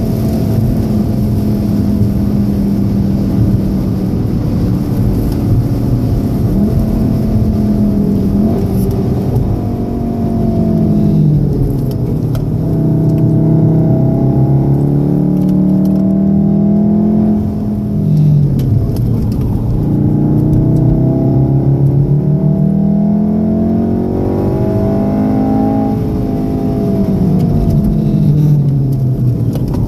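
Volkswagen Golf 7 R's turbocharged 2.0-litre four-cylinder heard from inside the cabin at track speed. It holds steady at high speed, drops in pitch about ten seconds in as the car slows hard for a corner, then rises and falls several times as it accelerates and slows through the following bends.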